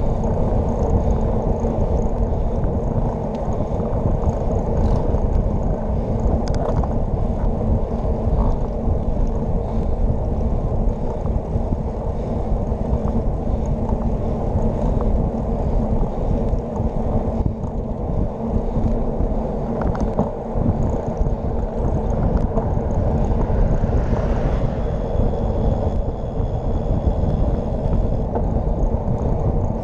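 Wind buffeting the microphone of a handlebar-mounted camera on a bicycle riding at speed, over the hum of tyres on wet asphalt. The rumble is steady.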